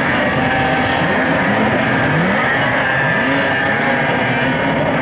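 Several racing snowmobiles running hard together on a snowcross course, their engines revving up and down in pitch as they race past.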